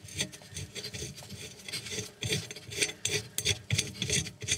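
Retaining nut being turned by gloved fingers onto the left-hand-threaded fan spindle of a NEFF fan oven: an irregular run of small scratchy metal clicks and glove rubbing.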